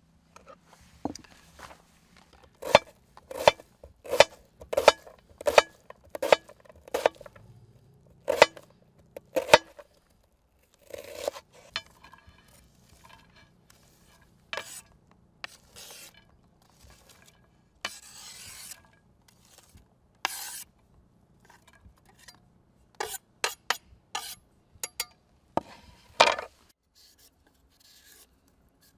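A run of sharp knocks about two-thirds of a second apart for several seconds, then scattered clinks, scrapes and a few more knocks near the end, like hard objects or utensils being handled.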